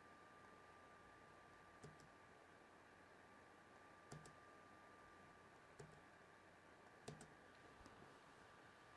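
Faint computer mouse clicks, five or so scattered at uneven intervals, a couple of them quick double clicks, over near-silent room tone with a faint steady hum.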